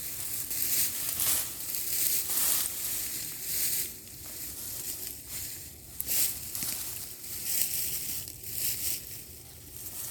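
Wood chips and soil being dug through and pulled aside, an uneven run of crunching and rustling scrapes.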